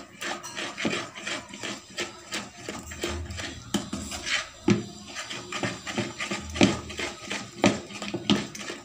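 A spatula stirring ground chana dal wet with sugar syrup, scraping and knocking against the bowl in quick, irregular strokes.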